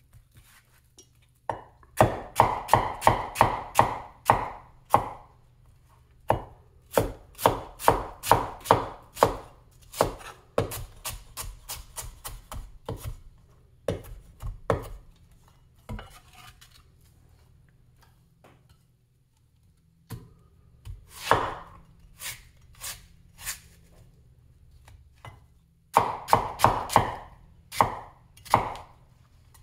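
Big vintage Chinese cleaver chopping red onion on a wooden cutting board: runs of quick blade knocks on the wood, about three a second, broken by short pauses. There is a quiet stretch of several seconds past the middle.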